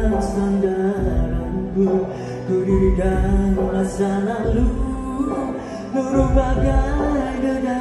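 A Malay pop song performed live: a male singer singing into a microphone over a band, with a steady low pulse under the melody.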